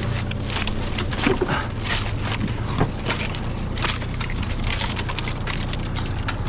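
Irregular scraping and cracking of wood, a sharp stroke every fraction of a second to a second, over a steady low engine hum.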